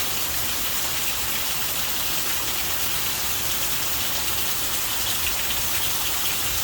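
Steady hiss of rain falling, with faint scattered drop ticks and no clear tone standing out.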